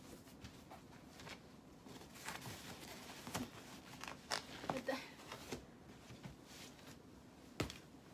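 Bedding rustling as a quilted mattress pad and sheets are handled and spread on a bed, with scattered soft thumps and a sharper knock near the end.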